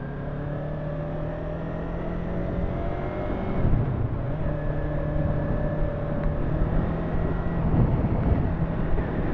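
Yamaha YZF-R3's parallel-twin engine running under way at steady revs, over wind and road noise. The revs climb a little, then drop about three and a half seconds in and hold steady again.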